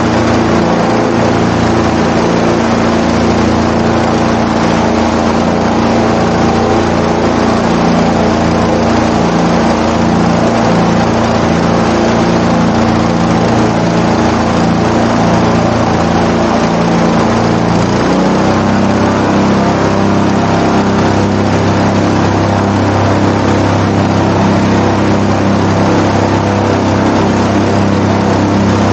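Airboat's engine and air propeller running loud and steady, the engine note stepping up slightly about eighteen seconds in.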